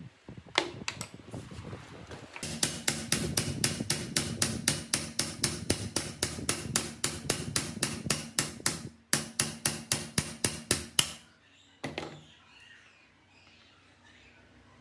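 Hammer striking the end of an electric motor shaft held in a bench vise, rapid even blows about four a second, driving the shaft out of its bearing housing. The blows pause briefly about two-thirds of the way through, then stop, with one last knock shortly after.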